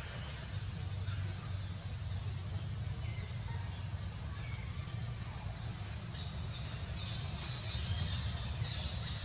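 Outdoor background sound: a steady low rumble with faint, thin high chirps, a little busier near the end.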